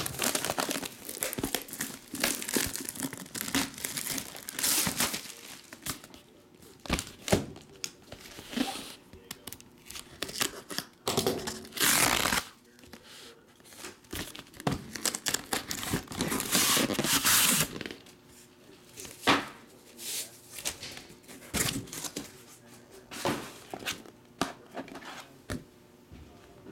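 Plastic wrapping crinkling and tearing in irregular bursts as a packaged photograph is unwrapped by hand. The loudest stretches come about halfway through and again about two-thirds of the way in.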